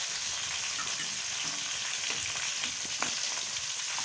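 Chopped tomatoes and onions sizzling in hot ghee in a metal kadhai: a steady frying hiss, with a few light clinks of a steel ladle as it stirs against the pan.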